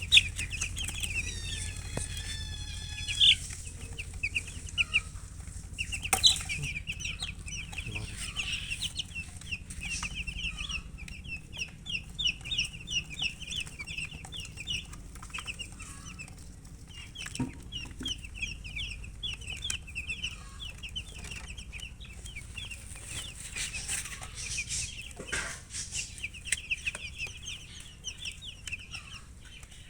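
Chickens chirping: long runs of short, high calls repeated several times a second, broken by a few brief pauses, with a few sharp clicks mixed in.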